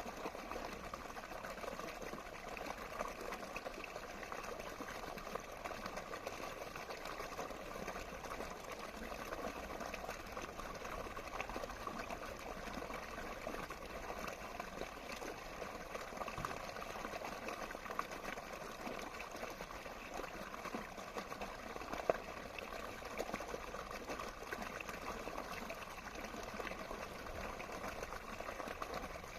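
Running water flowing steadily, a continuous bubbling wash, with one sharper splash about three-quarters of the way through.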